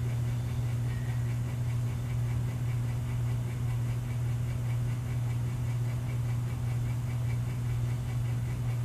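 A steady low hum with a faint hiss above it.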